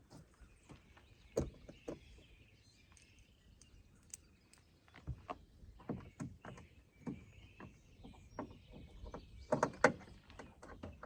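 Scattered light clicks and taps of a screwdriver and plastic door-panel parts as a screw is driven back into a car door, with a louder cluster of knocks near the end. Birds chirp faintly in the background.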